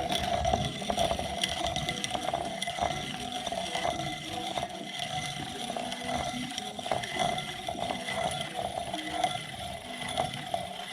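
Piston ring filer grinding the end gap of a piston ring: a steady grinding sound with many small irregular clicks, which stops near the end. The ring ends are being filed down to bring the ring gap to spec.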